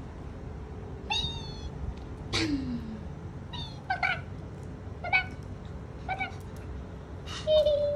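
Pomeranian dog whining and giving short high yips, about six separate calls, one of them sliding down in pitch about two seconds in.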